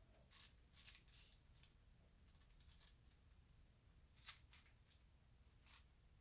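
A 5x5 Rubik's cube being turned by hand: faint, irregular clicks and clacks of its plastic layers, with a sharper click about four seconds in.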